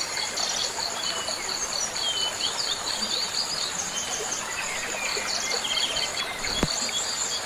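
Crickets trilling in a steady run of high pulses, with small birds chirping in short rising and falling notes over them.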